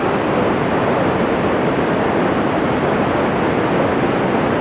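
Steady loud hiss of a two-metre FM amateur radio receiver on 145.000 MHz, its squelch open with no clear signal coming through: plain radio static.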